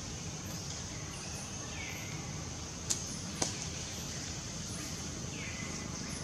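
Forest ambience: a steady high-pitched hiss over a low rumble, with a few faint falling chirps. Two sharp clicks come about half a second apart near the middle.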